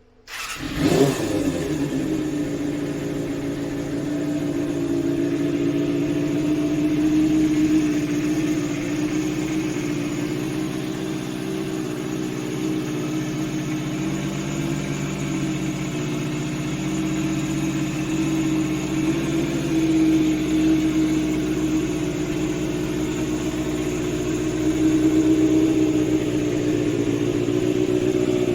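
Kawasaki Balius 250 cc inline-four motorcycle engine starting about half a second in, then running steadily, swelling slightly in level a few times.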